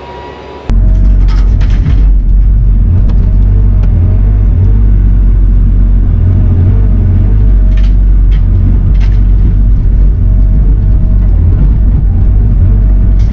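Heavy construction machine's diesel engine running loud and steady, with a few knocks and clanks of the machine working. The rumble cuts in suddenly less than a second in, replacing a quieter sound.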